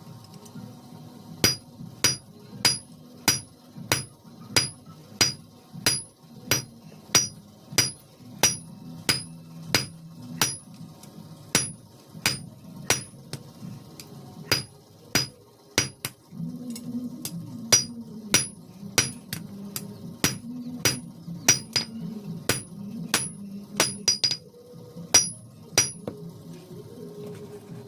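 Blacksmith's hammer striking iron on an anvil while forging a chisel, in steady blows a little under two a second, each with a high metallic ring. The blows stop near the end, and a low hum runs underneath.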